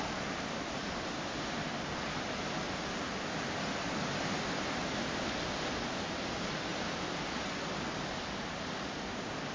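Sea surf washing steadily, a continuous rushing noise that swells a little partway through and eases off again.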